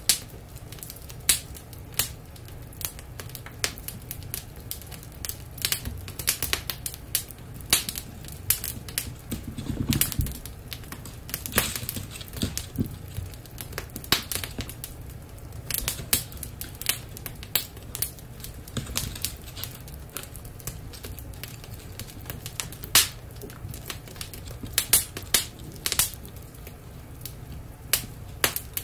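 Dachshund puppies' claws clicking and scrabbling on a hardwood floor as they run and tussle, in irregular clusters of sharp ticks.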